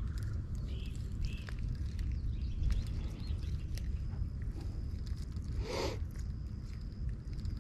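Wind rumbling on the microphone outdoors, with faint small clicks from handling the fish and fishing line, a few short bird chirps about a second in, and a brief louder sound about six seconds in.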